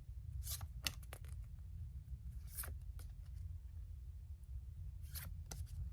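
Faint rustles and light clicks of album inclusions (small cards, paper and plastic) being handled and taken out, over a steady low hum.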